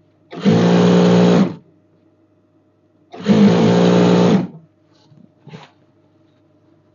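Sewing machine running in two short bursts of about a second each, stitching a single seam along the underside of a jalabiya sleeve, with a few faint clicks after the second run.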